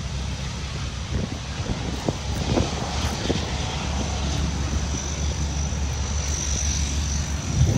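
Convair 580 turboprop airliner's engines running as it rolls along the runway: a steady low drone with a high turbine whine that grows louder in the second half.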